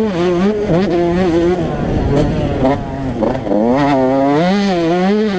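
Yamaha YZ125 125cc two-stroke single-cylinder engine revving hard and falling off again and again as the bike is ridden around a motocross track, the pitch climbing and dropping several times through gear changes and throttle chops.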